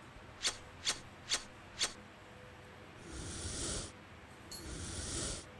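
A hand patting a cat's back and rump: four sharp pats about half a second apart, then two longer rubbing swishes of the hand over the fur.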